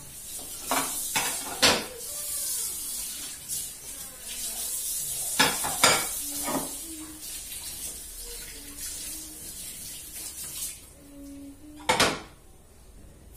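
Dishes being washed under a running kitchen tap: plates clatter against each other and the sink several times over the hiss of the water. The water stops near the end, followed by one more loud clatter.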